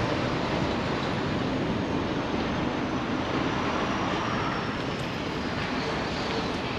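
Steady street traffic noise heard from a moving bicycle, with a large tractor-trailer truck running close alongside.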